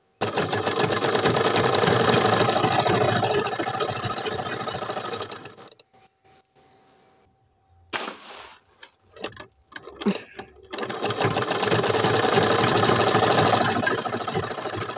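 Tailoring sewing machine stitching fabric at speed, a fast even clatter of the needle mechanism. It runs for about five seconds, stops, a few irregular knocks and handling sounds follow, and it starts stitching again at about eleven seconds.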